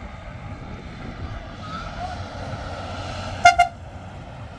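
A vehicle horn gives two short toots about three and a half seconds in, over a steady rumble of vehicle and traffic noise.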